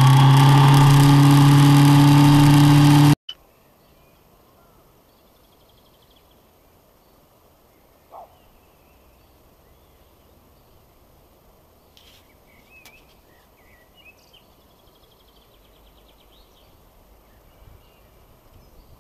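Motorcycle engine running at a steady pitch under heavy wind rush, cut off abruptly about three seconds in. Then quiet outdoor ambience with a few faint bird chirps.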